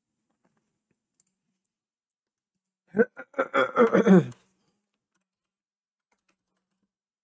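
A man's voice in a brief, unclear utterance lasting about a second and a half near the middle, dropping in pitch at its end. A single faint click comes about a second in.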